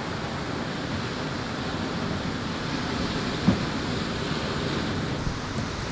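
Steady wash of ocean surf breaking on a beach, with one short knock about three and a half seconds in.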